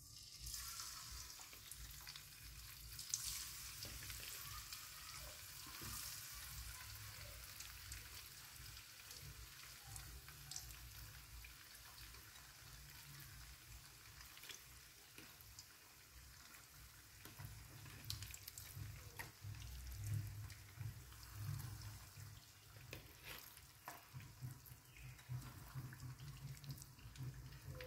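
Chicken pieces sizzling in shallow hot oil in a nonstick wok, a steady hiss with scattered crackles and pops. The sizzle starts suddenly as the first piece is laid in the oil.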